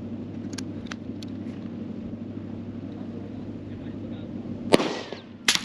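Suppressed 300 Blackout pistol shot from a CVA Scout with a Dead Air Nomad-LT silencer, a sharp crack near the end with a falling ring after it. A second sharp crack follows under a second later. A steady low rumble runs underneath.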